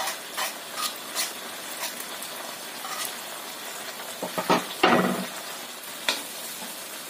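Sauce sizzling in a hot wok while a wooden spatula stirs it, with scattered scrapes and taps against the wok. A louder burst of scraping and knocking comes about four to five seconds in.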